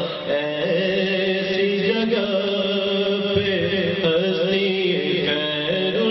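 A man's voice singing an Urdu naat in long, ornamented melodic phrases with gliding pitch, over a steady low drone.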